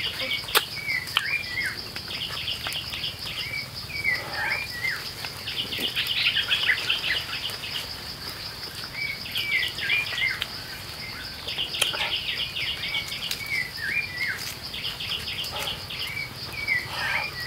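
Forest ambience: a steady, high, pulsing insect drone, with a bird repeating short hooked chirps and quick trills every few seconds. A few faint clicks sound now and then.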